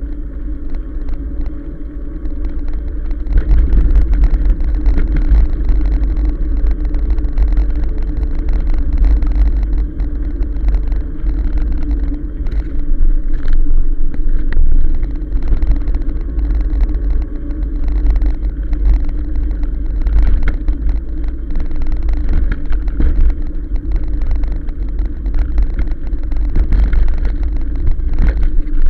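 Riding a 1000-watt e-bike along a tarmac path: heavy wind buffeting on the camera's microphone and rumble from the tyres on the road. A steady hum runs underneath, with frequent small rattles and knocks as the bike goes over bumps.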